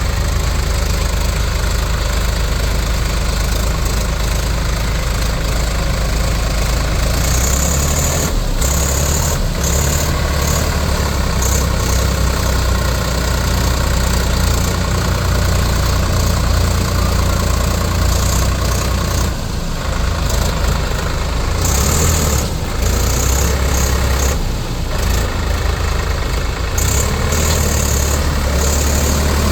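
Diesel engine of a heavy farm or construction machine running steadily, with a few brief dips in its note.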